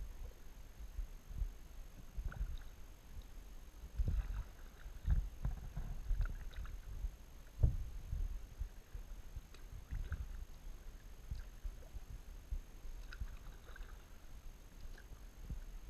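Kayak being paddled, heard through a GoPro: irregular low knocks and bumps against the hull, with faint light splashes of the paddle.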